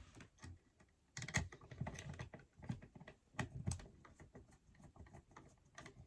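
Irregular small clicks and light scrapes as the mounting screws of a wall receptacle are started by hand into the electrical box, the outlet's plastic body and metal strap knocking as it is handled. The clicking begins about a second in.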